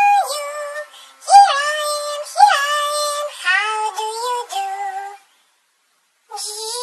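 High-pitched, synthetic-sounding children's nursery-rhyme singing, which breaks off about five seconds in; after about a second of silence, sound starts again near the end.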